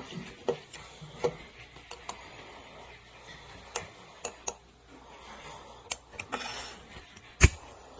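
Stainless steel shower hinge parts being handled and refitted: irregular metallic clicks and light knocks as the pin and glass plate are put back on, with one loud sharp knock near the end.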